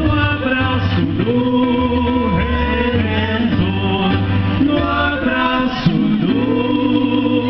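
Music: a song with singing voices over held bass notes.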